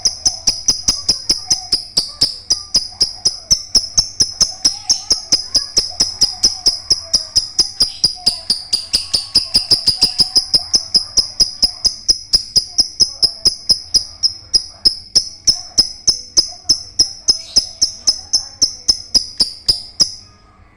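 Female lovebird chattering in one long unbroken run of rapid, shrill chirps, about five a second, that stops about a second before the end.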